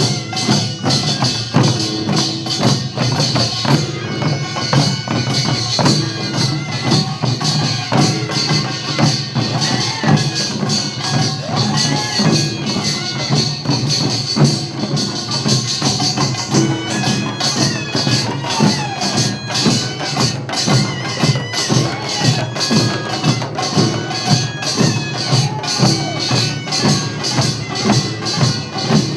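Korean farmers' band music (nongak/pungmul): a dense, steady rhythm of clanging small hand gongs and drums played together, with a pitched melodic line over it.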